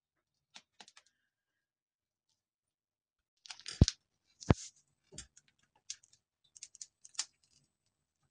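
Handling noise while piping whipped cream from a polythene bag: scattered small clicks and crinkles of the plastic, with two sharp knocks with a low thud near the middle, the second louder of the pair coming about half a second after the first.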